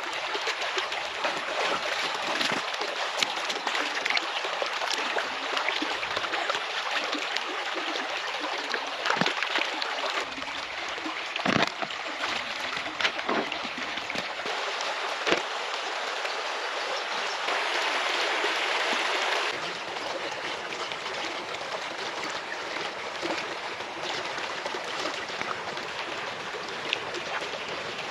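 Shallow stream rushing and splashing over stones. A few sharp knocks and splashes come through in the middle as stones are set into the water.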